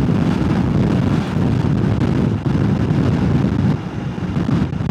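Heavy wind noise buffeting a DJI Mic Mini clip-on microphone on a moving motorcycle: a loud, dense low rumble with no let-up, bad enough to drown out other sound.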